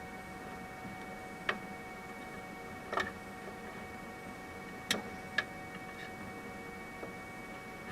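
Four short, sharp clicks and taps from parts of a 3D printer being handled, spaced one to two seconds apart, over a steady faint hum with several fixed tones.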